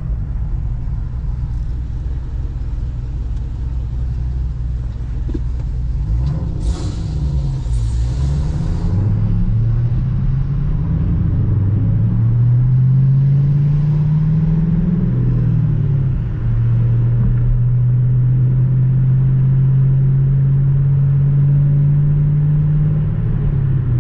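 Cammed 6.2-litre V8 of a Camaro SS running low and lumpy, then pulling up in revs and dropping back a couple of times before holding a steady cruise. A brief rushing noise comes about seven seconds in.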